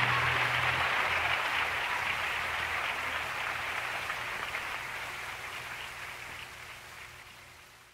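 Audience applauding at the end of a song, the last low instrument note dying out about a second in, the clapping fading steadily away.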